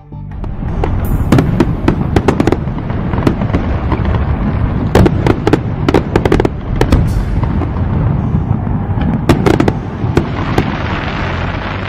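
Fireworks display going off: a continuous barrage of sharp bangs and crackling that starts just after the beginning.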